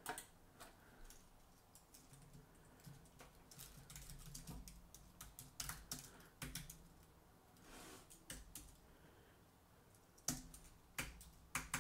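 Faint typing on a computer keyboard: irregular keystrokes in short runs with brief pauses between them.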